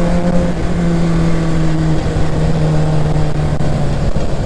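Sport bike's inline-four engine running at steady cruising revs, heard from the rider's seat with wind rushing over the microphone. The engine note eases a little lower partway through and again near the end as the rider rolls off the throttle.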